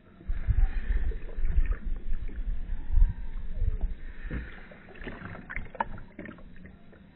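Developer sloshing back and forth inside a plastic daylight film developing tank as it is inverted by hand. The tank holds only the minimum fill of about 350 mL, so the liquid rushes through with a lot of air. A heavy low rumble runs through the first four seconds, then a few sharper sloshes and splashes follow before it settles near the end.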